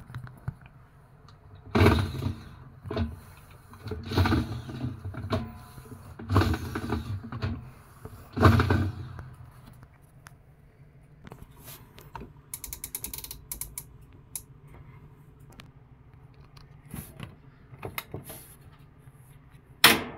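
Top-load washing machine with an agitator working: the drive turns the agitator and basket in short strokes, each a loud mechanical creak and clunk with a low rumble, five of them in the first half. After that come softer clicks and a quick run of ticks, then one sharp click near the end.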